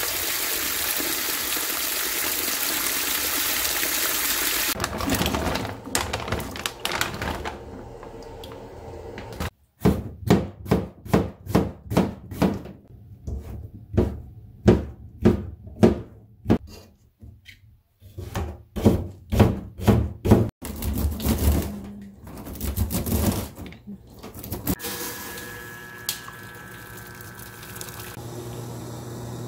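Tap water running hard onto bean sprouts in a metal pot, then a knife chopping mushrooms on a plastic cutting board, about two strikes a second for some ten seconds. A steady tone sounds for a few seconds near the end, and water pours into a steel pot.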